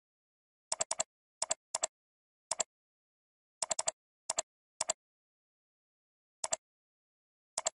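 Computer mouse clicks, about ten of them at irregular intervals, each a quick two-part click of a button press and release, with dead silence between.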